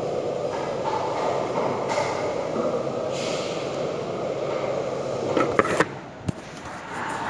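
A steady rushing background noise, broken about five and a half seconds in by a few short knocks as the phone is handled, after which the sound goes quieter and muffled.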